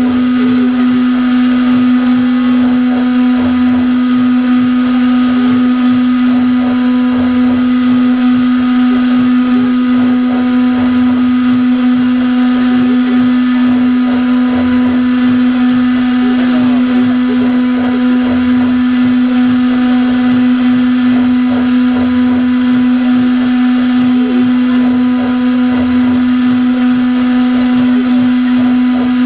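Havok CNC router's spindle running at a steady high pitch while it mills a relief into foam, with a rough cutting hiss underneath.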